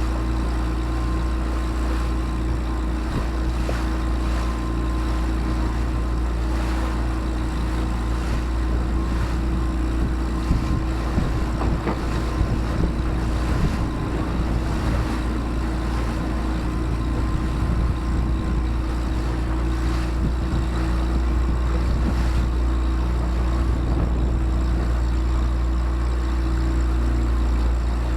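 Motorboat engine running steadily, a constant low drone, with water and wind noise on top.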